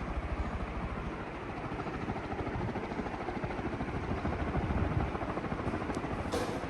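CMC Twin Dog industrial ceiling fan running, its blades beating the air in a steady, fast, pulsing whoosh. A brief sharp click-like sound near the end.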